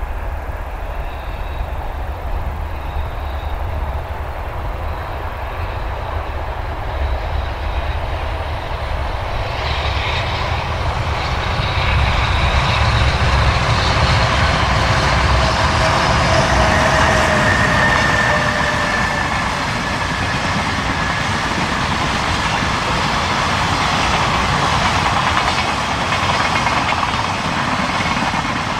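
An EH500 electric locomotive hauling a container freight train past: a low rumble grows louder about ten seconds in and peaks, then the container wagons keep rolling by with a steady rumble and rattle.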